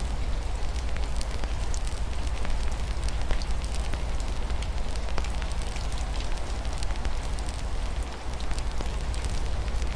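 Wood fire crackling with frequent small pops over a steady low rumble, with a gentle patter of rain mixed in.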